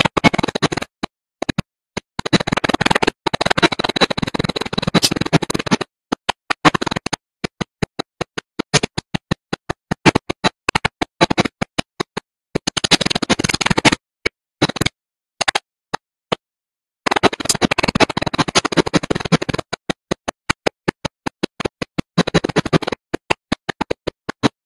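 CNC hydraulic die forging hammer (C92K-80KJ) at work: several bursts of rapid, closely spaced knocks with short gaps and scattered single knocks between them.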